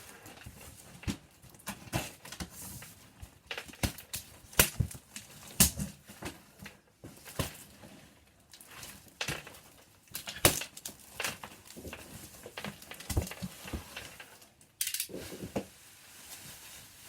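A cardboard shipping box being opened and its protective packing handled: irregular knocks, clicks and crackles.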